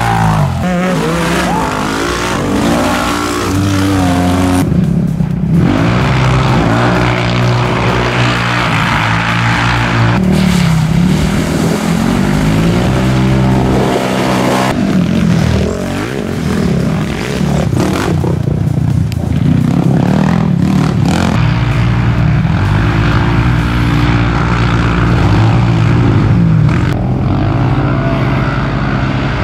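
Side-by-side UTV race engines revving through off-road sections, their pitch climbing and dropping with the throttle. The sound changes abruptly about every five seconds as one short clip cuts to the next.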